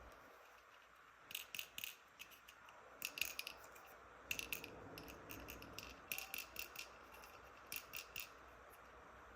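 Small plastic toy pieces being handled, giving sharp light clicks and taps in quick little clusters of two to four.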